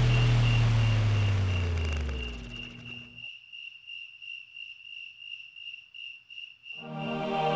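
Crickets chirping steadily over a low droning hum. The hum sinks in pitch and cuts off abruptly about three seconds in, leaving only the crickets. Music with sustained tones comes in near the end.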